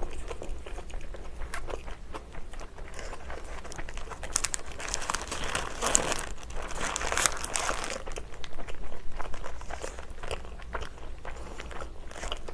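Close-up eating sounds: a mouthful of burger being chewed, with the burger's paper wrapper crinkling as it is handled, the crinkling thickest around the middle.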